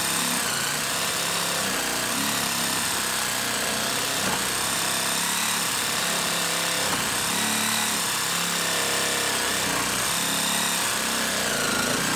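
DeWalt Atomic 20V compact reciprocating saw (DCS369) on a 1.5 Ah battery, cutting through a 2x4 with a 6-inch Avanti Pro blade. It runs steadily under load and cuts slowly, with the blade going a little wobbly.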